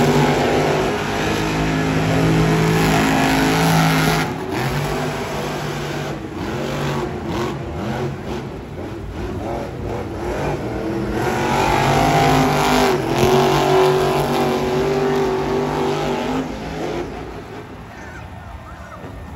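Monster truck engines, supercharged big-block V8s, revving and running loud, the pitch rising and falling as the trucks accelerate and back off across the dirt. The sound eases off near the end.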